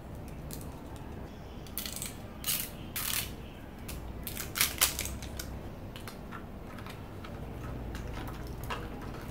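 A small clear plastic box of stamps being handled and opened: a run of plastic clicks and short crackles, loudest in the first half, then lighter taps as stamps are set down on tissue paper.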